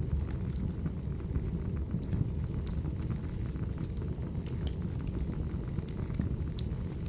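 Wood fire crackling: a steady low rumble of flames with scattered sharp pops and snaps at irregular moments.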